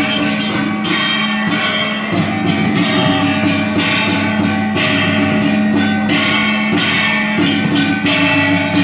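Background music with instruments and a steady beat.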